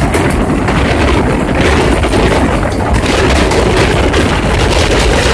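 Loud, steady wind rush buffeting the microphone of a mobile phone held out of a moving train, with irregular low thumps of the buffeting throughout.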